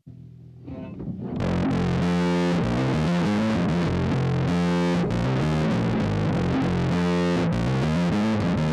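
Electric bass played through a guitar distortion patch on a Zoom MS-50G multi-effects pedal: a gritty, distorted riff that starts faintly and comes in fully about a second and a half in. A guitar-oriented distortion, which the player says gives the bass less body than a bass-oriented drive.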